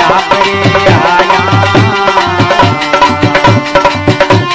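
Rajasthani devotional bhajan music: hand drums beat a steady rhythm with deep bass strokes under a gliding melodic line.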